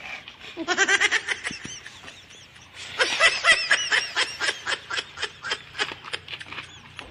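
Boys laughing and giggling in quick rhythmic bursts: a short fit about a second in, then a longer run of laughter from about three seconds in.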